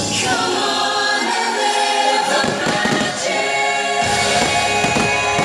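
Fireworks show soundtrack with a choir singing held notes. From about halfway, firework bursts pop and bang over the music, more thickly near the end.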